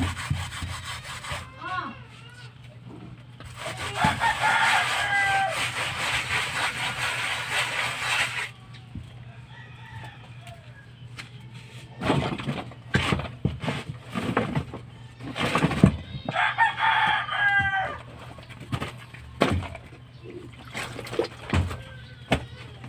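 A rooster crows twice, a long crow about four seconds in and another about sixteen seconds in. In between and after come bouts of scraping and knocking from a hand tool working on a concrete wall.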